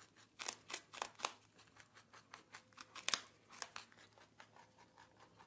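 Rabbit digging and scratching in loose sand in a glass tank: a run of short, scratchy strokes, a few a second and uneven, loudest about half a second in and again about three seconds in.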